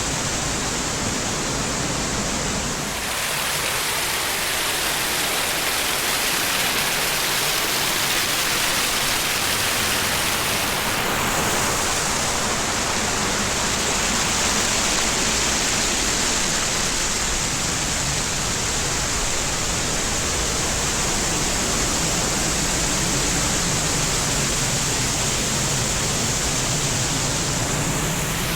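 Loud, steady rush of mountain creek water and small waterfalls. The sound shifts abruptly about three seconds in and again about eleven seconds in, as if moving to a different stretch of water.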